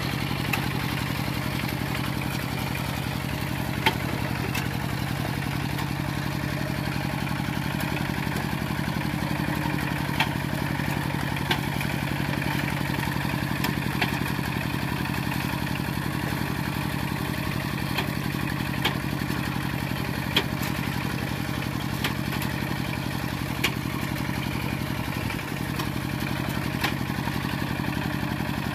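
Kubota RT120 walking tractor's single-cylinder diesel engine running steadily under load as its cage wheels drag it through deep paddy mud. A sharp clank comes every few seconds over the steady engine.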